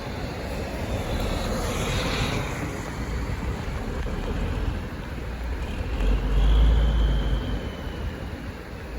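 Road-vehicle noise on a wet highway: a steady rumble and hiss, with a louder low rumble swelling about six seconds in and fading by about seven and a half.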